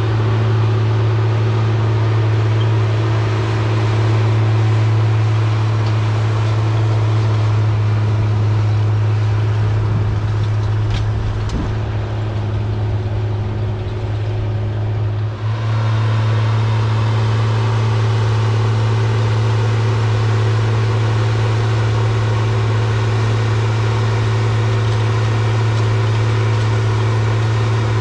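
Challenger MT765C rubber-tracked tractor's diesel engine running steadily under load as it pulls a 50-foot field cultivator, a constant low drone with a steady hum. For a few seconds around the middle the sound shifts to a lower rumble, then the steady drone returns.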